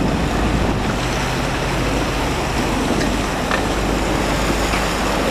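A steady rush of noise from wind on the microphone and water on a flooded track, over a low engine rumble, with a few faint clicks.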